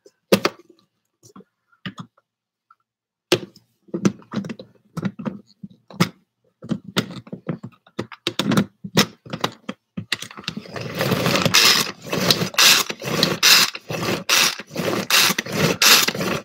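Hand-operated food chopper chopping meatless chicken strips: a few scattered clicks and knocks, then from about ten seconds in a quick run of repeated chopping strokes.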